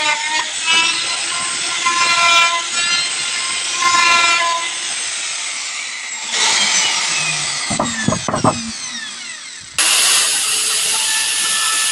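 Electric wood router running as it cuts a window frame, a steady high whine. About halfway through its pitch falls away as it spins down, with a few low knocks, then a loud steady run starts suddenly near the end.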